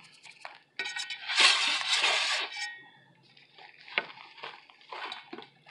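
Hands breaking apart a burnt baked cornstarch brick in a metal cake pan. A long crunching crumble starts about a second in, followed by scattered short crunches and light taps as pieces break off.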